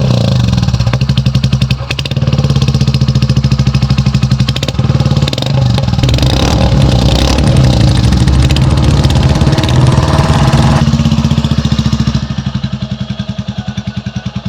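Royal Enfield Classic 350's single-cylinder engine running loud through a short Punjab aftermarket silencer, held at raised revs with a couple of throttle changes. Near the end it settles to a slow, evenly spaced thumping idle.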